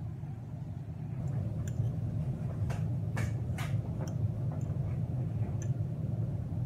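Metal fork clicking and scraping against a bowl while tossing noodles with salad vegetables: a handful of light, irregular clicks over a steady low hum.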